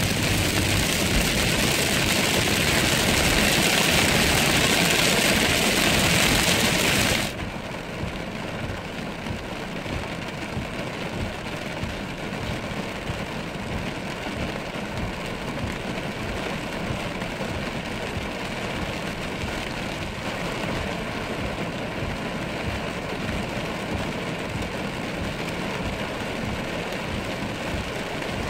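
A car driving in rain on a wet road, heard from inside the cabin: a steady hiss of rain and tyre spray. It is loud and bright at first, then drops abruptly about seven seconds in to a quieter, duller road noise.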